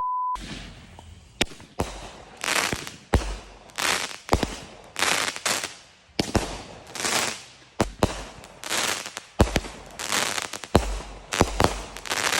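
Consumer fireworks going off in a long rapid series: each shot a sharp pop followed by a crackling burst, more than one a second.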